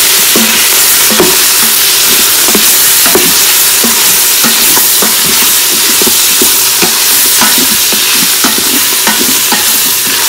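Bone-in beef pieces and browned onions frying in hot oil in an Instant Pot's stainless steel inner pot on sauté mode: a loud, steady sizzle with frequent small pops and crackles.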